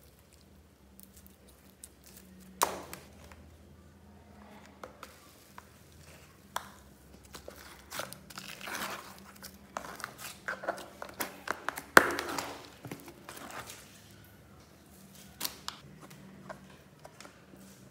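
Old slime being squeezed, pulled apart and dropped into a plastic-bag-lined wastebasket: sticky slime crackling and squelching, and the plastic bag crinkling. There are irregular sharp clicks, the loudest about two and a half seconds in and about twelve seconds in.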